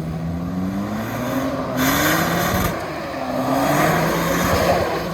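Off-road 4x4 engine revving under load, its pitch climbing twice as the driver gives it throttle on the climb, with a short burst of hissing noise about two seconds in.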